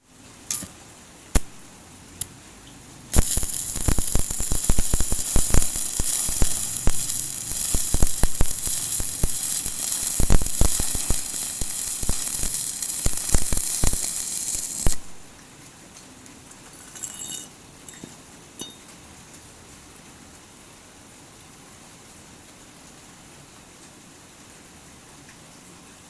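Electric stick (arc) welding on thin angle iron: a few brief taps as the electrode is struck, then about twelve seconds of continuous crackling, sizzling arc full of pops, cutting off abruptly. A few faint clinks follow a couple of seconds later.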